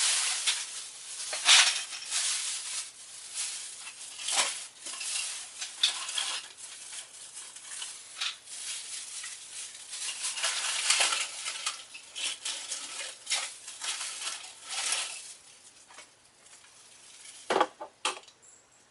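Hands rummaging among small hard plastic toy parts, clattering, clicking and rustling for about fifteen seconds, then a quieter stretch with one sharp knock near the end.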